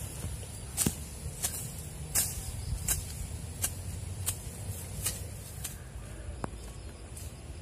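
Hands digging in soil around the base of cassava stems: short scraping and crackling strokes, about one every two-thirds of a second, over a low rumble.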